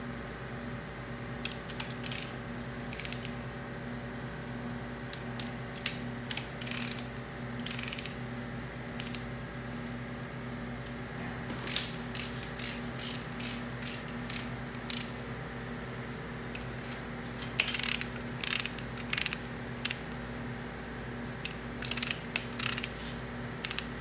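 Ratchet wrench clicking in several short runs, with a steady low hum underneath.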